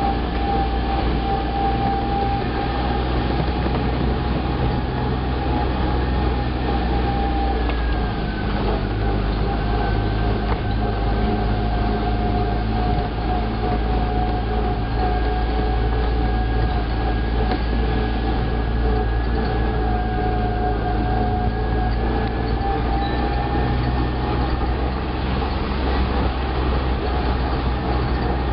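Cushman utility vehicle driving along, its engine and drivetrain running steadily with a low rumble and a whine that shifts slightly in pitch a few times.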